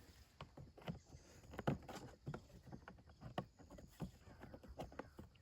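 Irregular light clicks and knocks of compost tumbler parts and a bolt being handled while the bolt is worked into a panel.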